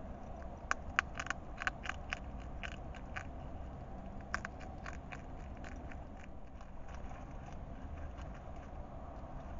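Hedgehog eating from a food bowl: a quick run of sharp crunching clicks in the first half that thin out and stop about halfway through. A steady low hiss runs underneath.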